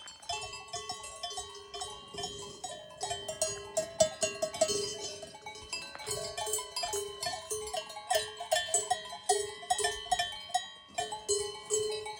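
Several cowbells on grazing cows clanking irregularly, many strikes a second, the bells ringing at different pitches as the cows move.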